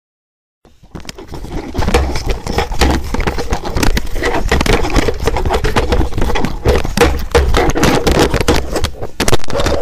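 Electric blender running: a loud motor whir with a dense, rapid rattle of clatters, starting after a brief silence and building up over the first second or so.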